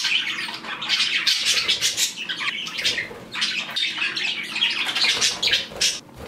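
A flock of pet budgies chattering, with dense overlapping chirps and squawks that fall away about six seconds in.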